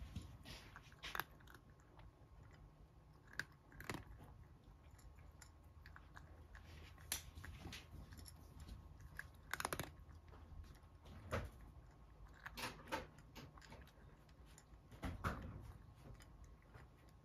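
A cat eating dry kibble from a small plate: irregular, crisp crunches and clicks as it bites and chews the pellets, a few of them sharper and louder than the rest.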